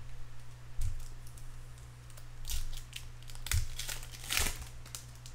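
Baseball card pack and cards being handled: a few short crinkling rustles of wrapper and card, the loudest near the end, over a steady low electrical hum.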